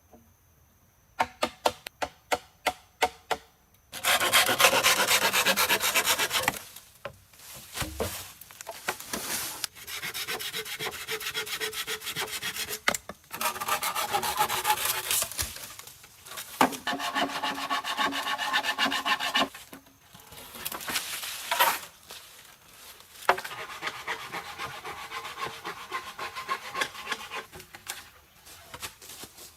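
A hand tool working wood: first a quick run of sharp taps, then long stretches of rough rasping strokes on wood, stopping and starting several times.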